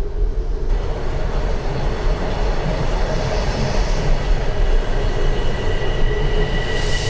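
Toronto subway train running into the station, a loud steady rumble of wheels and motors, with a thin high squeal joining in during the second half.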